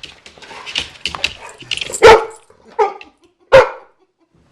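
Labrador barking: three short, sharp barks about three quarters of a second apart, the middle one softer, after a couple of seconds of faint clicks and rustling.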